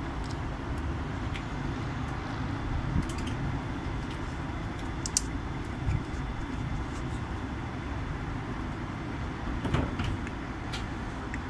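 Commercial tumble dryer running on high heat with a load of towels and dressing gowns: a steady low rumble from the turning drum and the fan, with a few light clicks and knocks as the load tumbles.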